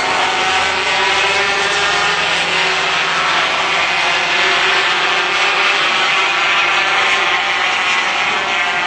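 A pack of 250cc two-stroke Grand Prix racing motorcycles passing at racing speed, many high-revving engines overlapping. It is loudest around the middle as the bikes go by close, then eases slightly near the end.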